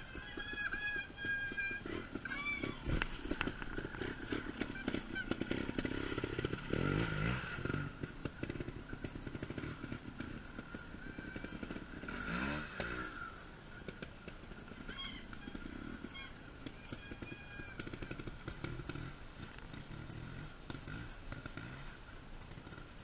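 Trials motorcycle engines blipping and revving unevenly as the bikes pick their way down a muddy bank, with a rising rev about twelve seconds in. A few short high calls are heard near the start.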